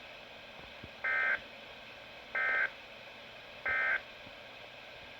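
Three short, identical bursts of a weather-radio SAME digital data signal, a warbling two-tone data squeal repeated at about 1.3-second intervals over faint radio hiss. The bursts are only about a third of a second long, the length of the end-of-message (NNNN) code.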